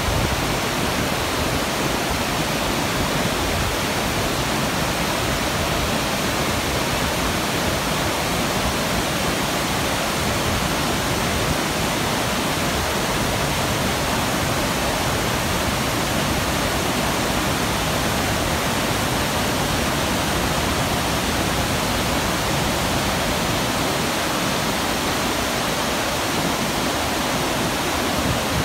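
Mountain river rushing over rocks and over the steps of a concrete check dam: a steady, even rush of white water at close range, with no change throughout.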